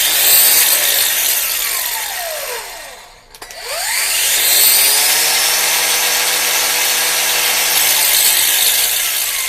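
Ridgid 18V cordless angle grinder, with its soft-start resistor still in place, running without load twice. The motor whine rises as it slowly ramps up, then falls away as the grinder coasts down within about three seconds. It is switched on again about three and a half seconds in, winds up over a second or so, holds a steady pitch for about three seconds, and coasts down near the end.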